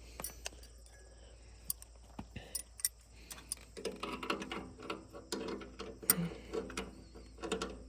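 Light metallic clicks and clinks of hand tools working on metal parts. The clicks come sparsely at first and grow busier and ringing about halfway through.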